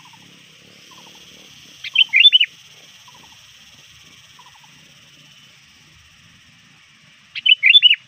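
Sooty-headed bulbul giving two short, loud bursts of quick whistled notes, about two seconds in and again near the end. These are the chattering calls of a bird calling out to rivals. A steady high-pitched drone runs underneath.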